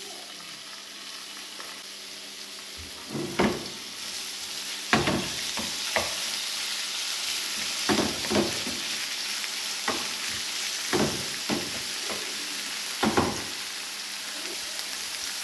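Diced chicken breast sizzling in hot olive oil in a frying pan, the hiss building over the first few seconds. A spatula scrapes and knocks against the pan every second or so as the pieces are stirred.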